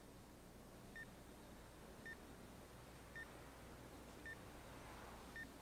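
Hospital heart monitor beeping faintly: a short, high single beep about once a second, five times, keeping time with the unconscious patient's heartbeat, over a faint low hum.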